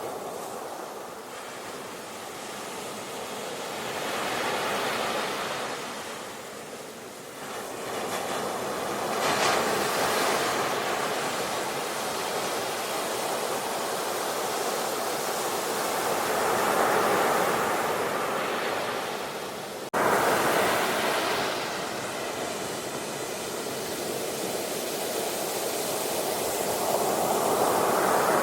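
Ocean surf, waves breaking and washing in one after another, the rush swelling and fading every few seconds. About two-thirds of the way through the sound cuts abruptly to a louder breaking wave.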